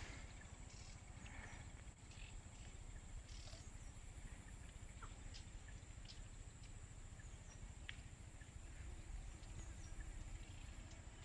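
Quiet rural outdoor ambience: scattered short bird chirps and ticks, a few with quick falling notes, over a faint steady low rumble.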